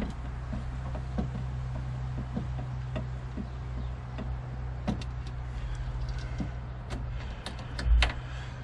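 Hand screwdriver backing screws out of a wooden prop inside a car door: scattered small clicks of the tool and screw, with a dull thump about eight seconds in.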